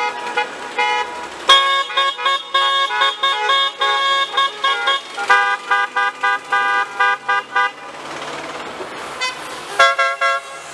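Car horns honking in a long run of rapid short toots, more than one horn sounding at once. The honking breaks off for about two seconds, then a last short burst comes near the end.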